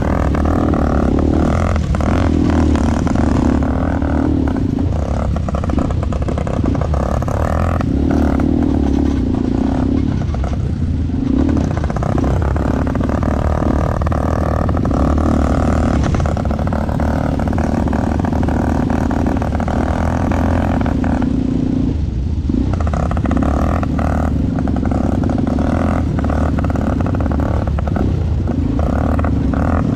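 ATV engine running under way, its pitch rising and falling with the throttle, easing off briefly about ten seconds in and again a little past twenty seconds.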